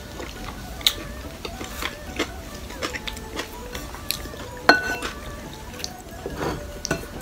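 A wooden spoon scraping and knocking in a ceramic bowl of thick beef and rice soup, a scattering of short clicks with one louder ringing clink a little before five seconds in. Soft background music underneath.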